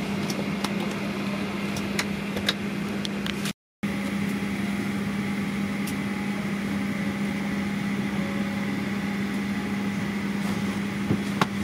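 Steady cabin hum inside a Boeing 737-800 on the ground: the air-conditioning rushes evenly under a low steady drone, with a few faint clicks. It cuts out briefly a little before four seconds in.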